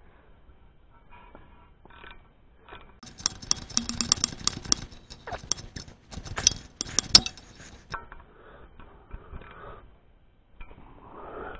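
Steel wrench clicking and clinking against a nut on the fan pulley's set screw, a quick run of sharp metallic clicks for about four seconds, as a second nut is tightened down against the jam nut. Fainter handling ticks come before and after.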